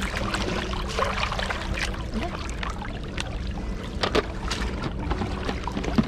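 Water splashing and sloshing, with many small sharp splashes, as live goldfish are handled and flap in a plastic tub of water.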